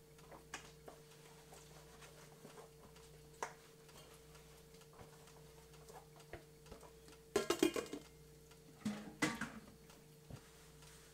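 Food frying in hot oil inside a closed electric deep fryer: scattered pops and ticks over a steady hum, with two short spells of louder crackling about seven and nine seconds in.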